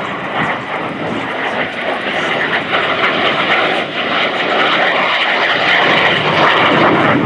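MiG-17 jet fighter flying a pass at high power with its afterburner lit. Its turbojet makes loud, steady jet noise that grows somewhat louder toward the end.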